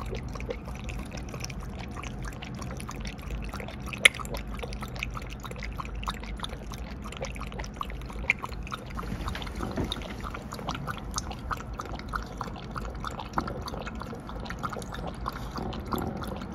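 A small dog lapping water from a glass bowl: a quick, steady run of wet laps and splashes, with one sharp click about four seconds in.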